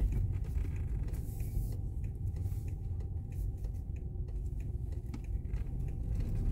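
Car cabin: steady low engine and road rumble as the car turns a corner at low speed, with faint light ticking.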